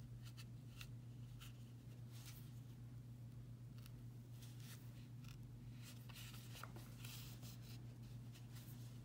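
Faint, irregular scratching and rustling of a sewing needle and thread being drawn through the wrapped yarn of a stitched ball, over a steady low hum.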